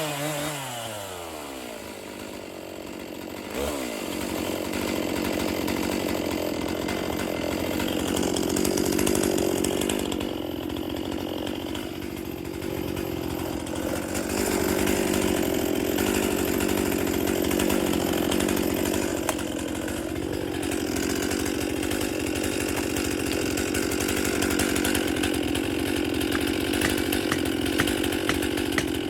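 Two-stroke Stihl chainsaw: its engine drops from a high rev at the start, then runs steadily for the rest of the time, with a few brief dips in speed.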